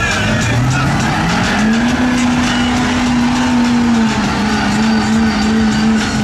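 Off-road vehicle's engine revving hard: its pitch climbs steeply in the first couple of seconds, holds high, eases off slightly about four seconds in, then holds steady.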